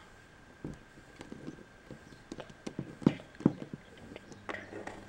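Light plastic taps and clicks of Littlest Pet Shop toy figures being moved and hopped on a table and rock: an uneven scatter of quick knocks, the two loudest about three seconds in.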